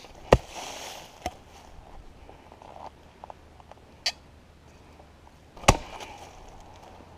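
Super P 40 fire tool (a Pulaski-style axe and hoe) striking with a chopping swing. Two sharp, loud blows land about five seconds apart, with lighter knocks and clicks between them.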